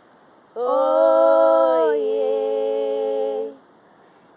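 Unaccompanied voices chanting a long drawn-out 'oye', the call of a Swahili Christmas poem's refrain. It starts about half a second in, holds one note, steps slightly lower partway through and stops about a second before the end.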